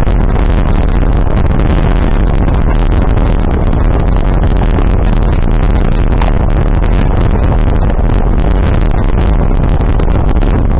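Loud, steady vehicle noise heard from on board: a dense rumble without a clear engine note.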